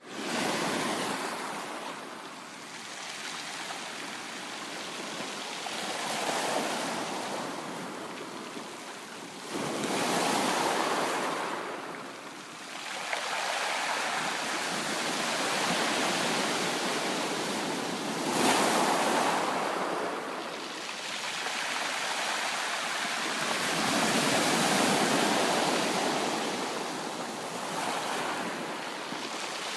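Ocean waves breaking and washing on a shore: a continuous rush of surf that swells with each breaker every few seconds, the biggest about ten and eighteen seconds in, then ebbs.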